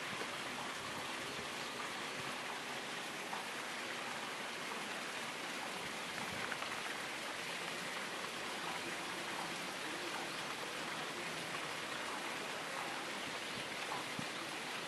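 Steady, even hiss of outdoor background noise, unchanging throughout, with a few faint ticks.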